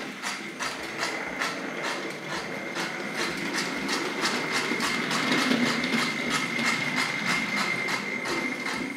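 Tri-ang Hornby 00-scale model steam locomotive running along the track, the homemade 3D-printed chuff-chuff sound box in its tender giving a steady chuff, about four a second: the tender wheels drag a scraper across sandpaper under a membrane. A steady high whine runs alongside.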